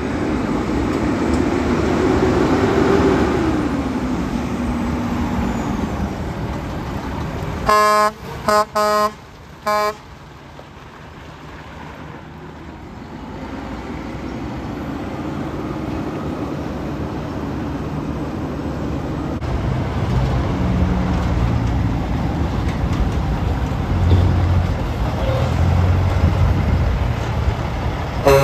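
Heavy diesel trucks driving past. A concrete mixer truck's engine rises then falls in pitch in the first few seconds. Four short air-horn blasts come about 8 to 10 seconds in, then a deeper engine rumble builds as a semi approaches, with one more horn blast right at the end.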